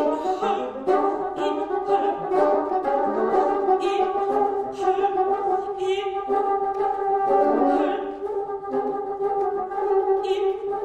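Ensemble of eight bassoons and a contrabassoon playing held notes with short staccato grace-note flourishes that recur throughout, while a soprano sustains long notes above.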